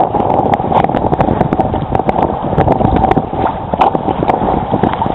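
Wind buffeting the microphone and water rushing along the hull of a Hobie Mirage Adventure Island trimaran sailing fast through choppy water. Frequent sharp slaps of waves and spray hit the boat throughout.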